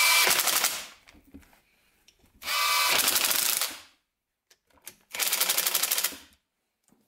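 A handheld power tool runs a bolt in with a socket in three bursts of a little over a second each. Each burst is a fast, even rattle.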